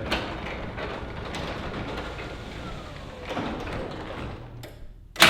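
Sectional garage door running along its tracks, driven by a Chamberlain RJO70 wall-mount jackshaft opener, a steady rumble that dies down after about four and a half seconds. A loud thud follows near the end.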